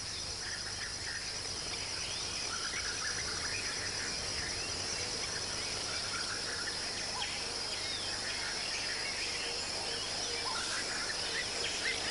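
Steady high-pitched insect chorus, crickets or similar, with scattered short bird chirps.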